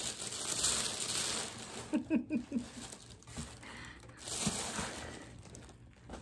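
Tissue paper crinkling and rustling as it is handled and pulled from a cardboard shipping box, in two spells: at the start and again about four seconds in.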